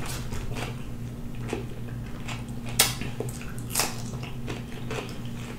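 Eating sounds close to the microphone: chewing with a few short sharp clicks, the loudest about three seconds in, and a crisp bite into a raw cucumber slice about four seconds in.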